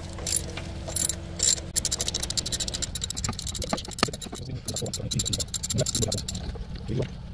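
Rapid metallic clicking and rattling of a ratchet wrench being worked at the engine's serpentine belt tensioner, starting about two seconds in, over a low steady hum.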